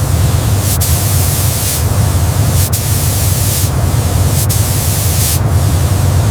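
Loud steady hissing spray over a low rumble, with brief dips in the hiss every second or so.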